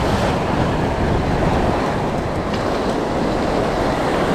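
Steady wind buffeting the microphone over surf washing against rocks, a continuous low rumbling rush.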